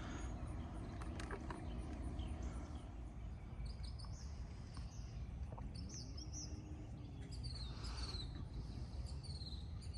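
Songbirds chirping, many short high calls from a few seconds in, over a low steady rumble of outdoor background noise.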